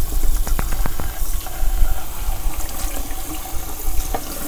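Kitchen tap running into a pan of raw chicken feet in a stainless steel sink, water splashing as a gloved hand rubs and turns the feet to rinse them. A few light knocks sound about half a second to a second in and again near the end.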